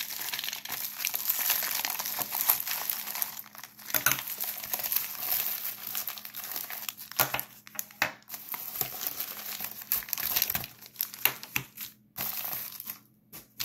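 A padded plastic mailer and clear plastic coin bags crinkling and rustling as they are handled and unpacked, with a few brief taps in between. The rustling thins out near the end.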